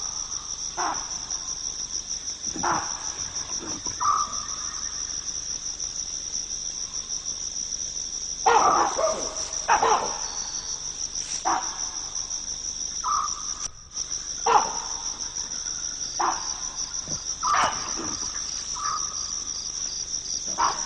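A steady night chorus of crickets trilling high and shrill, broken about a dozen times by short, loud calls from agitated baboons.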